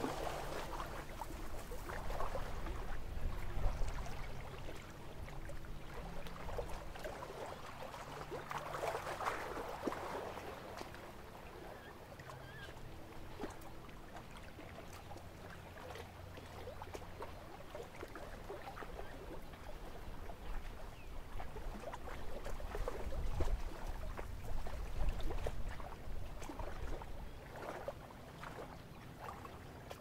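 Quiet lakeside ambience with faint water lapping, scattered small ticks and a low steady hum.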